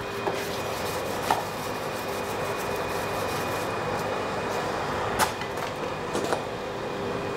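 Steady rushing of a forge's air blower feeding the coal fire, with a few sharp metal clinks from tongs and tools, the loudest about five seconds in.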